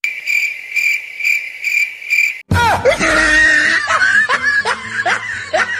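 Cricket chirping sound effect, an even pulsing chirp about twice a second, the stock cue for an awkward silence. About two and a half seconds in it is cut off by a loud comic sound effect of quick repeated swooping pitches.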